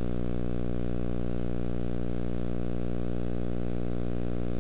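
Steady electrical mains hum from an old videotape transfer: a buzzy drone with many even overtones and a faint high whine above it.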